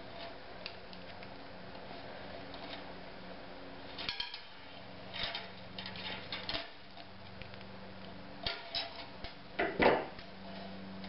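14-gauge galvanized steel wire being bent and handled with needle-nose pliers: scattered metallic clicks and scrapes, in small clusters, the loudest near the end, over a steady low hum.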